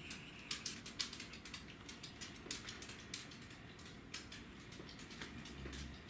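Eurasian tree sparrows at the feeders: a quick, irregular run of short, sharp high chirps and clicks, busiest in the first half.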